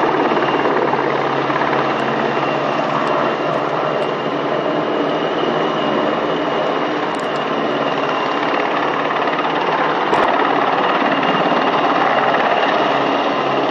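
PZL W-3 Sokół rescue helicopter flying low, its twin turboshaft engines and rotor making a steady, loud noise.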